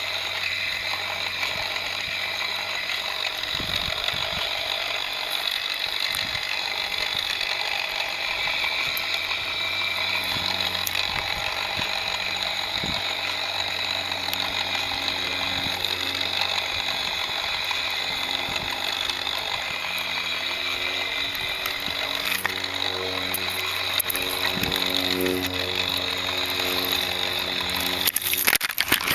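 Lego Technic 4x4's motor and plastic gear train whirring steadily with a ratcheting gear chatter as the model drives over a rough dirt path. A short burst of clattering near the end as it pushes into grass.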